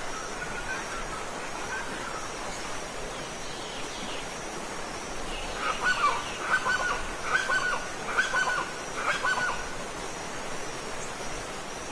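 Steady rush of a waterfall, with a bird honking five times in a row, about a second apart, in the middle.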